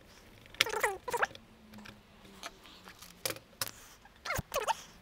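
Three short squeaks with bending pitch from a wall clock's parts being screwed and pressed together by hand, with a few light clicks and taps in between.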